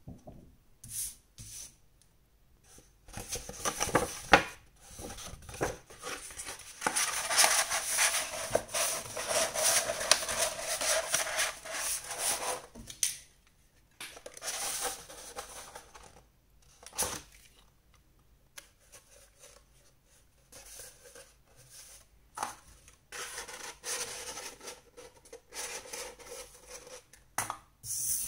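Sheets of construction paper rustling and rubbing as they are handled and rolled into a tube, with a few sharp clicks of a stapler fastening the paper.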